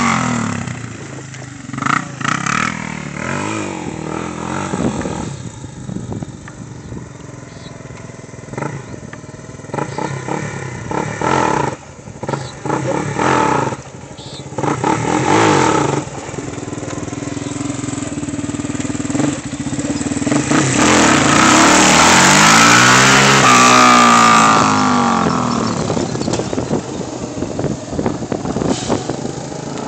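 Yamaha Raptor 350 quad's single-cylinder four-stroke engine being ridden, revved in short repeated bursts, then building up and passing close by about twenty seconds in, its pitch rising and then falling as it goes past.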